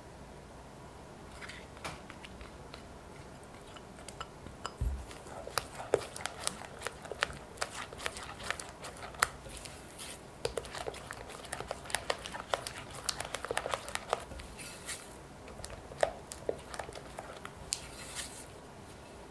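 Silicone spatula stirring a beaten egg into creamed butter and sugar in a glass bowl: a quick, irregular run of small wet clicks and scrapes against the glass, starting about four seconds in and stopping just before the end.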